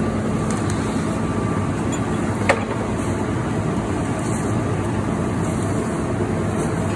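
Steady low hum of an idling vehicle engine, with a single sharp click about two and a half seconds in.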